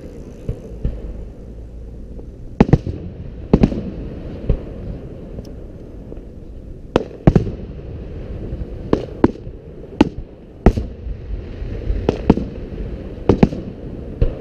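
Aerial firework shells bursting: about fifteen sharp booms at irregular intervals, several coming in quick pairs, over a steady low rumble.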